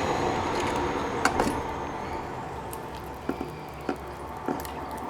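Light clicks and scraping of a small sharp tool picking old adhesive off a phone's camera recess, a few separate ticks over a steady background hiss.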